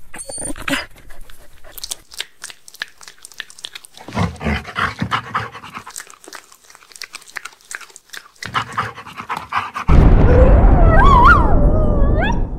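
A dog panting and chewing on a chicken drumstick, with quick crunching clicks. About ten seconds in, a loud rushing noise with a wavering whistle over it cuts in.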